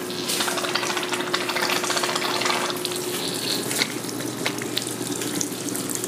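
Water running and trickling through a drip hydroponics system, with a steady hum underneath.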